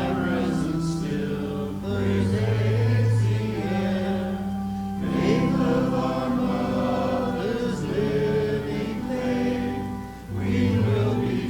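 A congregation singing a hymn together, over long-held low accompanying notes, with short breaths between phrases.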